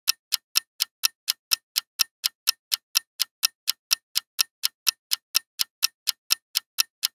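Clock-style ticking sound effect marking a countdown timer: even, sharp ticks at about four a second.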